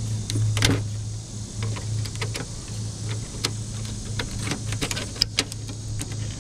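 Irregular small clicks and ticks of pliers and fingers working a small circuit board loose from a flat-screen TV's sheet-steel back panel, over a steady low hum.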